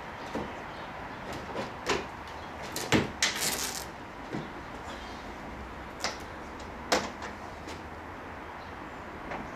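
Jeep JK's fiberglass bonnet being unlatched and lifted open: a string of sharp clicks and knocks from the catches and the bonnet, the loudest about three seconds in, followed at once by a brief scraping hiss.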